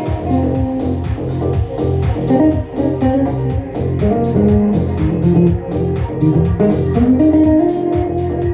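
A band playing: a guitar melody over a bass line, with a steady, even beat.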